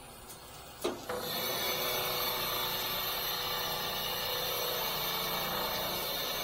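A click about a second in, then the boom crane's hydraulic winch running steadily as it pays out the load line to lower the staircase.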